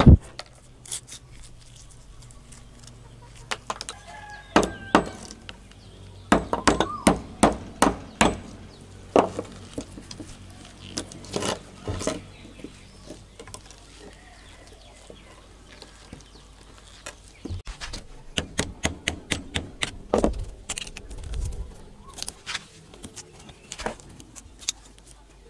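Steel pliers and a screwdriver knocking and tapping on a wooden board as the cracked plastic grip is pried off the plier handle. The taps are sharp and irregular, bunched in quick clusters about a quarter of the way in and again after the middle.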